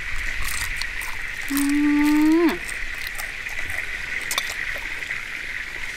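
A steady high insect-like drone, with scattered light crunching clicks from eating crunchy fried food. About two seconds in comes one held, pitched hum or call lasting about a second, rising at its end before it cuts off sharply.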